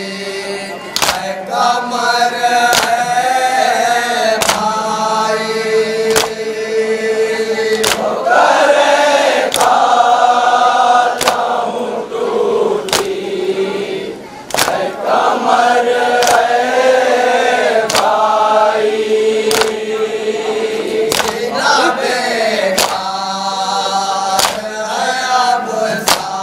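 Men chanting a noha, a Shia lament for Muharram: a lead reciter sings into a microphone and a group of men joins in, with sharp slaps of matam (chest-beating) landing about once a second to keep the beat.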